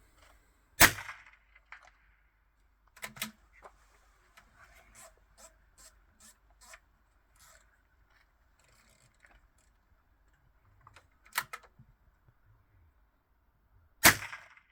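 .22 LR rimfire rifle firing two single shots about thirteen seconds apart. Between the shots come smaller clicks and knocks from the rifle being handled.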